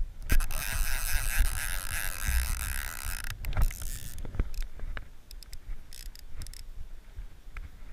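Wind rumbling on the microphone with water splashing around a small craft, a rushing hiss that cuts off a little over three seconds in, and scattered clicks and knocks from handling the fly rod and landing net.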